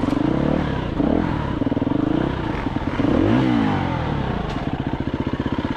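KTM enduro motorcycle engine revving up and down in short bursts of throttle as the bike climbs over rocks, then settling into a slow, even low-rev chug near the end.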